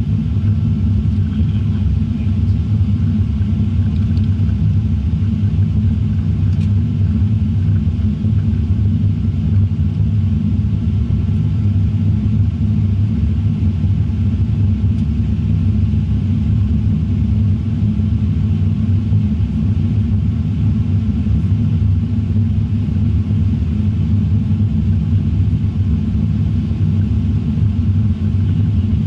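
Steady low rumble of a Boeing 787-9 airliner heard from inside the cabin, the engine and airflow noise of the flight, with a faint steady whine above it.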